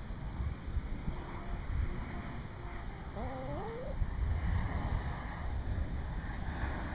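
Backyard hens vocalizing: a few soft short notes, then about three seconds in one drawn-out call that climbs in pitch in steps, over a steady low rumble.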